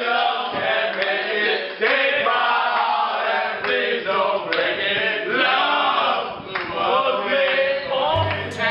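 A group of men singing together in chorus, with no instruments behind them. Near the end a recorded music track with a bass line comes in.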